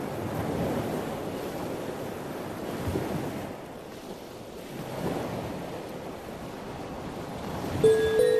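Ocean surf: a rushing wash of noise that swells and fades several times. Near the end, bell-like chime notes come in.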